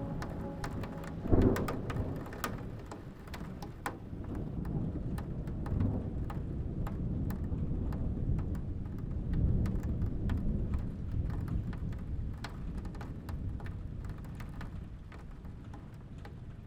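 Steady rain with individual drops clicking close by, a sudden thunderclap about a second and a half in, and low rolling thunder swelling up near the middle before the rain eases a little toward the end.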